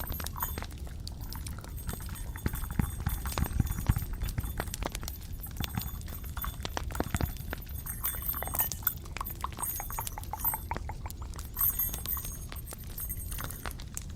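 Close-up ASMR tapping and clicking on objects near the microphone: quick, irregular taps with small clinks, a few louder about three to four seconds in and near the end.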